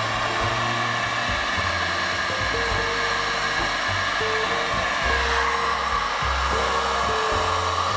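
Verto 2000 W heat gun blowing hot air in a steady rush, drying the wet clay of a bowl turning on a potter's wheel. Background music with low bass notes plays underneath.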